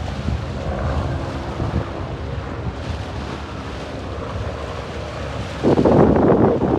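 Wind buffeting the microphone over the low, steady rumble of a boat underway on open water. A stronger gust hits the microphone near the end and is the loudest part.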